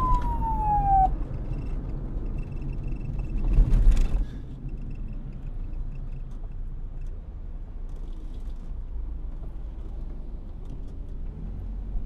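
Police siren wail sliding down in pitch and cutting off about a second in, leaving a low steady rumble with a louder noisy swell about four seconds in.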